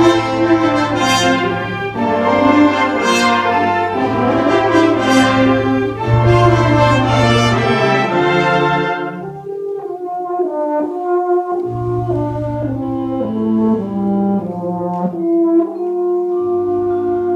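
Concert wind band playing with a euphonium soloist. About nine seconds in, the full band drops away and the euphonium carries on nearly alone over soft low sustained accompaniment, stepping down through a phrase and ending on a long held note.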